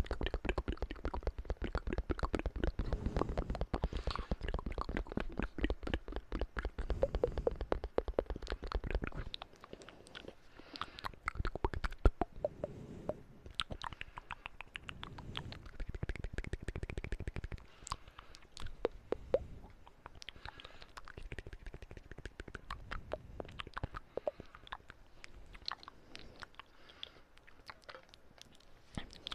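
Close-miked ASMR mouth sounds: rapid wet clicks and smacks, dense and mixed with low thuds for the first nine seconds or so, then sparser and lighter.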